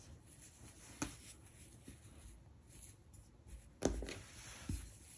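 Faint hand-handling noises of crocheting: yarn and hook being worked by hand, with a soft click about a second in and two louder short knocks in the last second and a half.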